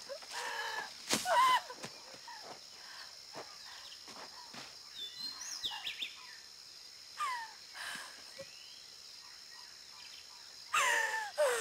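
Outdoor tropical ambience: birds chirping and calling over a steady high hiss.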